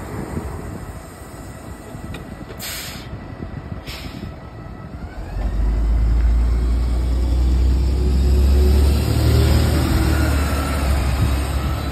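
LiAZ-5292.65-03 city bus pulling away from a stop. Two short hisses of compressed air come a little over a second apart, then the engine takes up the load about five seconds in with a loud low rumble and a rising whine as the bus accelerates off.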